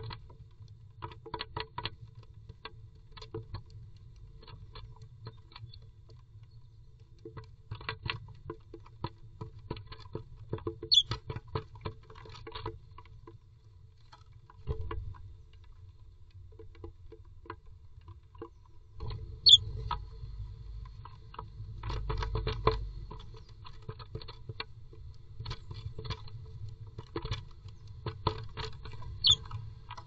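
A blue tit moving about inside its nest box: irregular scratching, tapping and rustling on the wood and nest material. Three short, high chirps stand out, spread through the stretch.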